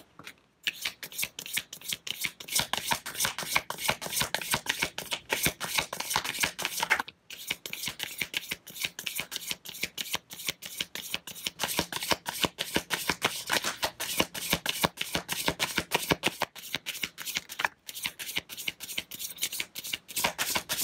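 Tarot cards being shuffled by hand: a continuous rapid patter of card clicks, broken by short pauses three times.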